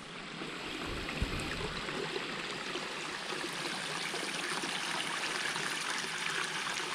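Small mountain stream running over rocks, a steady rushing of water that swells over the first two seconds and then holds. A single low thump about a second in.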